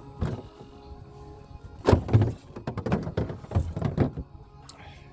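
Background music with a run of dull thumps in the middle, the loudest about two seconds in.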